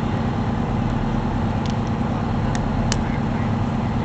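Fire truck engine running at a steady speed, a constant low drone, with a few short sharp ticks between about one and a half and three seconds in.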